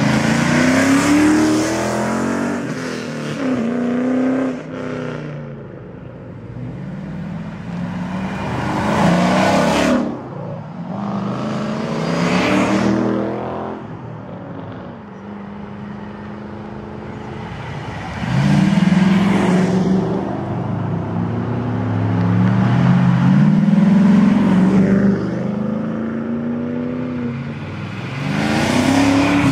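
A string of cars, Ford Mustangs among them, driving past one after another. Their engines rev up and fall back as each pulls away, about seven loud pass-bys in all.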